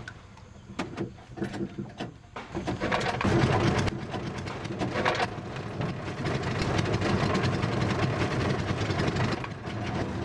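A few knocks, then a small boat motor starts about two and a half seconds in and keeps running steadily.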